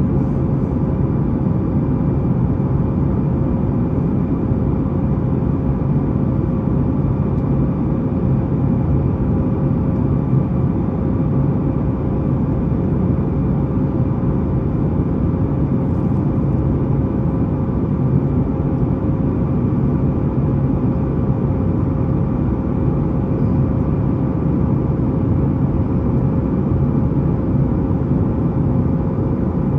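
Steady engine and airflow noise inside the cabin of a Boeing 737-9 MAX climbing after takeoff, its CFM LEAP-1B turbofans under power: a low, even rumble with a steady hum tone riding above it.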